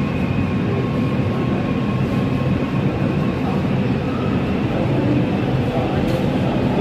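Breda A650 subway car running through a tunnel, heard from inside the car: a steady rumble of wheels on rail with a faint steady whine above it.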